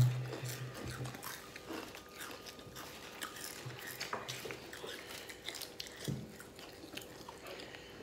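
Chewing and crunching of Doritos Flamin' Hot tortilla chips, with scattered crisp crunches throughout. A brief low hum sounds at the very start.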